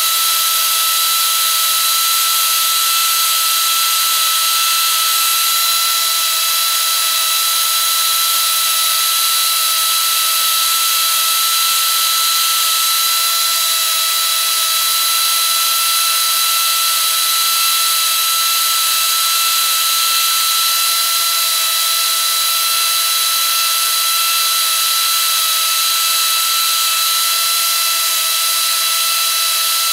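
Arbortech Mini Pro power carver running at a steady speed: a constant motor whine over a high hiss, with no rise or fall in pitch or level.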